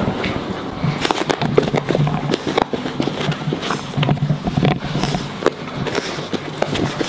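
A French bulldog puppy playing with a tennis ball at close range: a busy, irregular run of clicks, knocks and scuffles.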